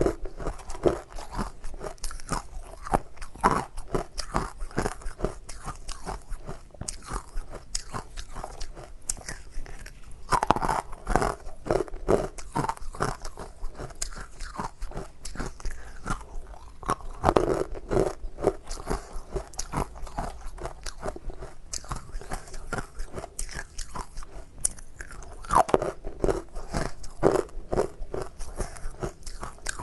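Ice being bitten and chewed close to the microphone: a steady run of sharp crunches and cracks, with louder clusters of bites every several seconds.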